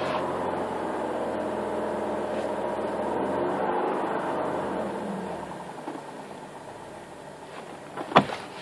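2009 Infiniti G37's 3.7-litre V6 held at about 3,000 rpm with the clutch pedal up, the condition in which the car's clutch-down rattle does not occur. About five seconds in the engine note dies away as the revs drop, and there is a sharp click near the end.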